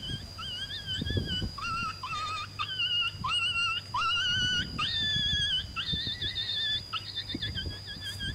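Abandoned dog whining over and over: a dozen or so short, high whimpers, each rising at the start, about two a second. A steady high-pitched tone runs underneath.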